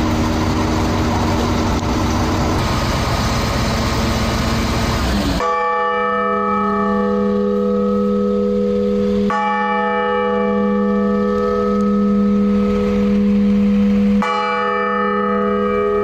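A large new bronze church bell hanging from a crane is struck three times, about four to five seconds apart. Each strike rings on in a long, steady hum of several tones. This is its first test ringing on the ground before it is hoisted into the belfry. Before the first strike there is a loud steady noise.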